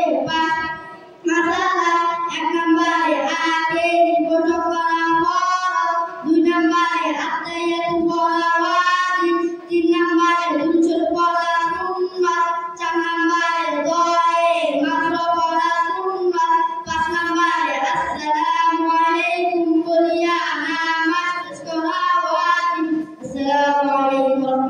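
Two boys singing together into microphones, unaccompanied: an Islamic devotional song sung in long held phrases with short breaks for breath.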